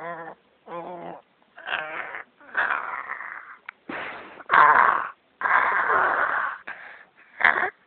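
A goat bleating over and over in a hoarse voice. The first two calls have a clear pitch, and the rest are rough, rasping, wheezy bleats, loudest near the middle.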